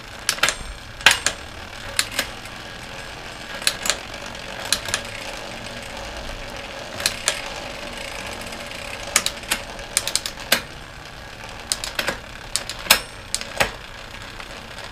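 Drivetrain of a YT Tues downhill mountain bike turned by hand: a steady whir of the chain and wheel, broken by irregular sharp clicks.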